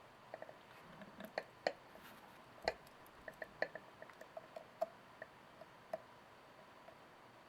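Faint, irregular small clicks and ticks of a lock pick and tension tool working inside a Kwikset SmartKey lock cylinder, thinning out near the end.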